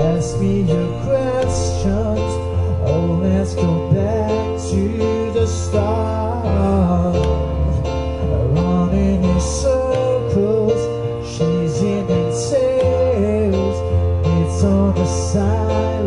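Music from a slow ballad song: a melodic lead line gliding between notes over a steady bass line, with no lyrics sung.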